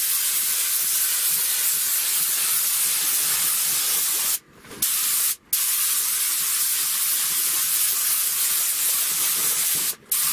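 Compressed-air gravity-feed spray gun hissing steadily as it lays a thin dark-grey guide coat of acrylic filler primer. The hiss cuts off briefly twice around the middle and once near the end, where the trigger is let go between passes.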